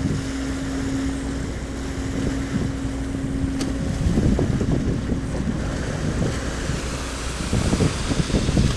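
Wind buffeting the microphone over the rush of floodwater pouring out of a freshly opened culvert floodgate, with a steady engine hum that stops about seven seconds in.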